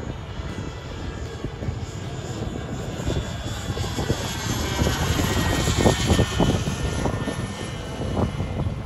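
Kingtech K100TP model turboprop in a JMB Jets Pilatus PC-21 flying past, a turbine whine with propeller noise. It swells to its loudest about five to six seconds in and drops in pitch as the plane goes by, over a low rumble.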